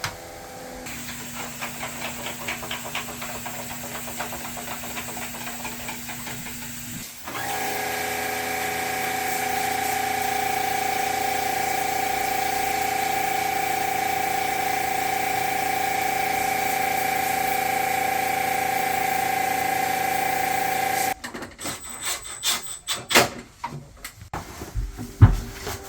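A machine runs with a steady hiss and whine, louder from about 7 seconds in, then cuts off abruptly. A series of sharp, irregular knocks and clatters follows near the end.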